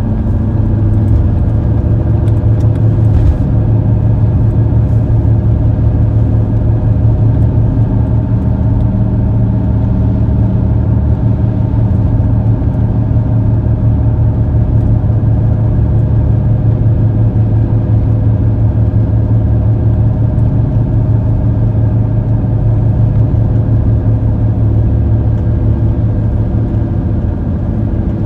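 Steady engine and road noise of a car driving at motorway speed, heard from inside the cabin as a continuous low hum, with a single faint click about three seconds in.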